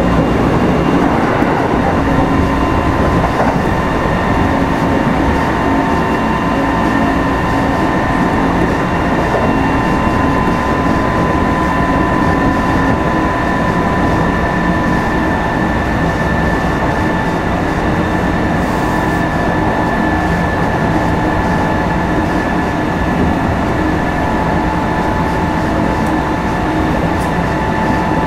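Running sound inside a Kintetsu 5211-series electric motor car (Mo 5212) travelling at a steady speed. There is an even rumble of wheels on rail, with steady whining tones over it.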